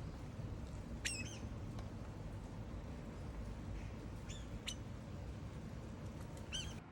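Brown-eared bulbul giving short, shrill calls: one about a second in, two close together near the middle and one near the end, over a low steady background hum.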